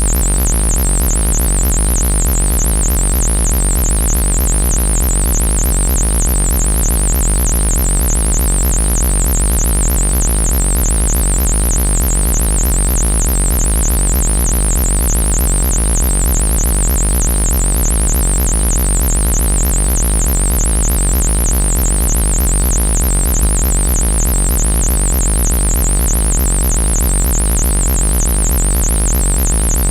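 Loud electronic synthesizer music or drone, cutting in abruptly and holding steady. It has a deep low hum and a fast-warbling high tone on top.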